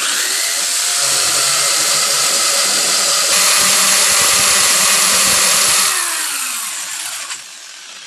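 Hammer drill boring into a cinder-block wall with a masonry bit, the hammer action running loud and steady for about six seconds; then the trigger is let go and the motor winds down.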